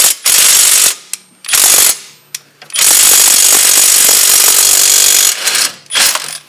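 Milwaukee cordless impact wrench hammering on a bolt at a car's front brake caliper and steering knuckle. It runs in four bursts: a short one, a shorter one about a second and a half in, a long one of about two and a half seconds, and a brief one near the end.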